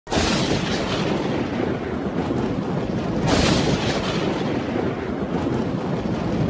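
Thunderstorm sound effect: a dense rush of rain and rumbling thunder that starts abruptly, with a louder thunder crack a little over three seconds in.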